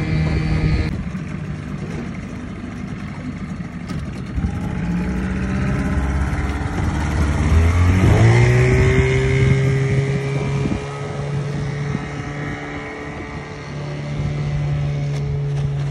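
Boat outboard motor running, revving up about halfway through and then holding a steady higher pitch, with wind and water noise over it.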